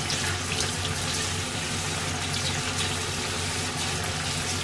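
Kitchen tap running into a stainless-steel sink, the water splashing steadily over a strainer being rinsed under it.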